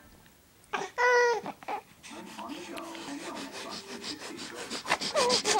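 Newborn baby giving a short fussy cry about a second in, then a run of quick scratchy rubbing sounds with soft vocal noises, and a brief falling whimper near the end.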